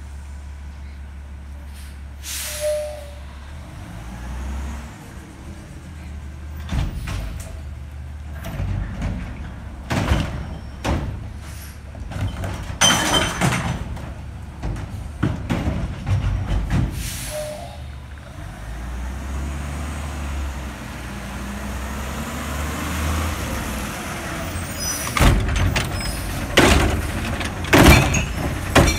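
Automated side-loader recycling truck running, its diesel engine humming, with the air brakes hissing about three times as it creeps up between stops. Knocks and clatters from the truck and its arm run through the middle, and near the end the arm clamps a plastic wheeled cart with several sharp clunks.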